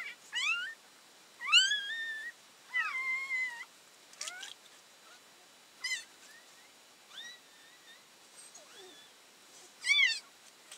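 Newborn puppy crying in a string of short, high squeals, several rising in pitch, the loudest one near the end.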